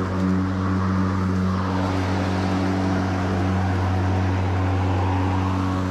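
EGO 56V Select Cut battery lawn mower running under load: a steady, even hum from the motor and spinning blades with a hiss of cut grass over it.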